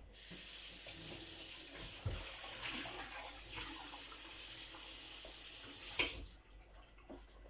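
Water running in a steady stream for about six seconds, then stopping with a click.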